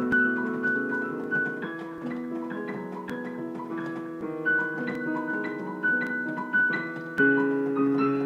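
Background music: piano playing a slow melody over held chords.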